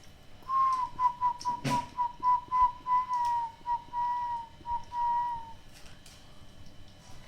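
Crossbred zebra dove (perkutut silangan) giving its odd, whistle-like call: a run of short, clear notes at one pitch, breaking off several times a second, then drawing out into longer notes that drop slightly at the end, about five seconds in all. A single sharp knock sounds early in the call.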